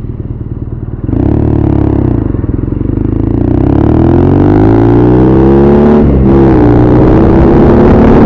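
BMW R nineT Scrambler's air/oil-cooled boxer twin ticking over, then pulling away hard about a second in and rising in pitch as it accelerates. There is a brief dip for an upshift about six seconds in, after which the engine climbs again.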